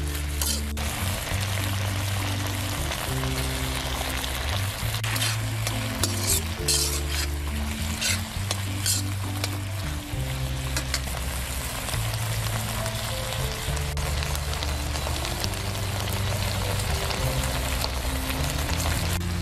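Onions, capsicum and paneer sizzling in sauce in a hot wok as a spatula stirs and tosses them, with several short scrapes along the way. Background music of held low notes plays underneath.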